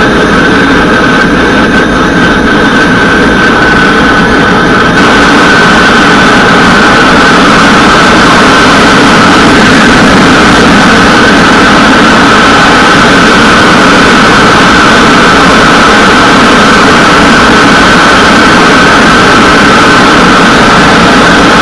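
Gas torch burner blowing into a small kiln-shelf gas forge, a loud steady roar. It grows a little brighter about five seconds in. The forge is heating a small O1 steel blade toward cherry red for hardening.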